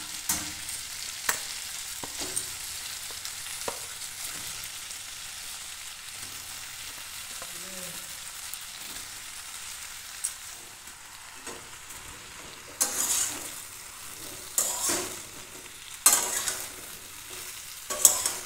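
Potato, tomato and spices frying in mustard oil in a metal kadai, sizzling steadily. In the first few seconds there are a few sharp knocks as eggplant pieces are dropped in. In the last third, a metal spatula scrapes around the pan in four short strokes.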